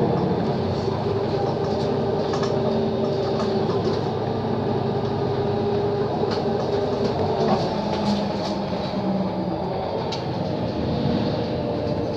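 Mercedes-Benz O 530 Citaro city bus under way, heard from inside the passenger cabin: a steady engine drone and rolling rumble with a low hum that shifts a little in pitch, and a few light rattles.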